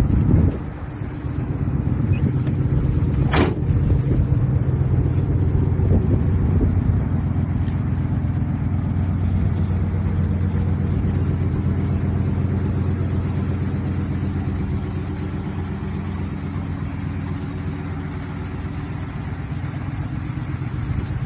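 Pickup truck engine idling steadily, an even low hum. There is a thump about half a second in and a short sharp click a few seconds in.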